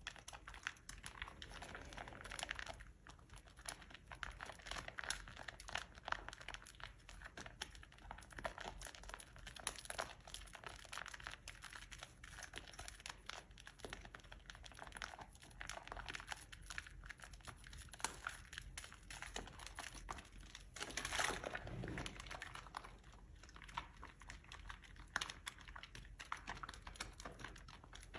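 Soap being worked by hand for ASMR: a dense, steady run of small crackles and crunches, with a louder, longer scrape about twenty-one seconds in.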